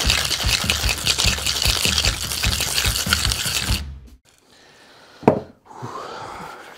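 Ice rattling hard inside a two-piece stainless steel tin-on-tin cocktail shaker, shaken with a fast, even rhythm. This is the wet shake with ice that follows the dry shake of an egg-white sour. The rattle stops abruptly about four seconds in, and a single knock follows a little after five seconds.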